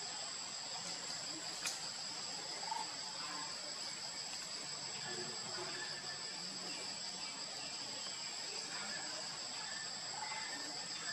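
Steady drone of insects at two high pitches, with a single sharp click about two seconds in.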